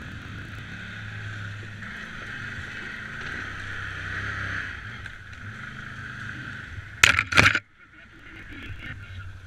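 ATV engine running steadily under throttle as the quad climbs and bumps along a rough trail, heard through a helmet-mounted camera. Just after seven seconds there are two or three loud knocks as the machine jolts, and the sound dips briefly before the engine noise comes back.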